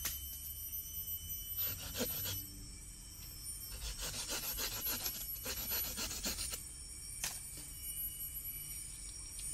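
Wood being scraped and rubbed by hand in several bursts, the longest about halfway through, with steady faint high tones underneath.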